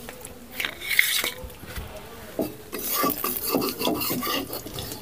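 Metal cookware being scraped and rubbed in irregular strokes, with a few light clinks.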